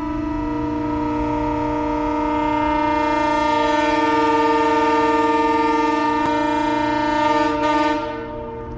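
Locomotive air horn sounding a long held chord of several steady notes, a further note joining about half a second in. It swells louder over the first few seconds and falls away near the end.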